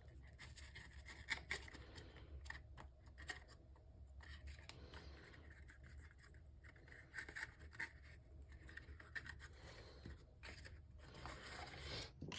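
Faint handling of cardstock: rubbing, scraping and small irregular taps and clicks as folded paper pieces are pressed together and glued, over a low steady hum.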